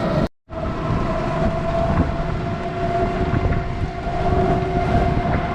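An engine running steadily with a faint steady hum over noisy rumble; the sound cuts out completely for a moment about a third of a second in.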